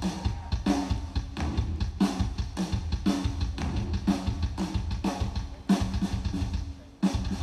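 Live drum solo on a ddrum kit: a dense run of rapid bass drum strokes under tom hits that come about twice a second, with snare and cymbals. Near the end the playing drops away briefly before a loud hit.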